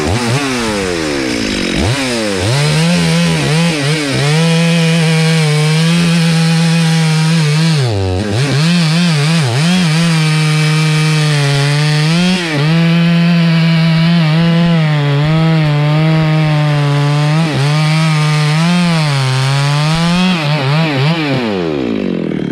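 Stihl MS 382 chainsaw cutting through a rain tree log. The engine revs up about two seconds in and holds a steady high pitch while it cuts. The pitch dips briefly once, about eight seconds in, then the engine winds down near the end as the throttle is let off.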